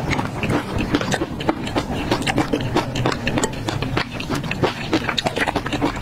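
Close-miked chewing of crunchy peanuts in chili oil: a rapid, irregular run of crisp crunches, several a second.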